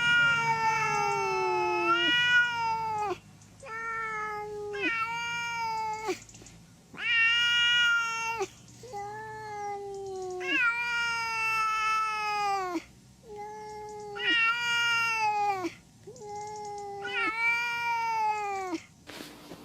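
A cat yowling in a run of long, drawn-out calls, about nine or ten of them, each held for one to three seconds at a steady pitch and falling off at the end: the caterwauling of an angry cat.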